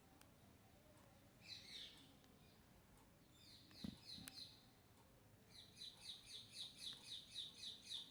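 Parrot calling faintly: a short chirp about a second and a half in, another a couple of seconds later with a sharp click, then a fast run of about ten repeated chirps, roughly four a second, over the last few seconds.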